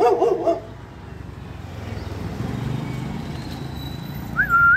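A dog gives a short wavering yelp at the start. A motor vehicle passing on the road makes a low rumble that swells and fades in the middle. Near the end there is a brief high whine that rises, holds and rises again.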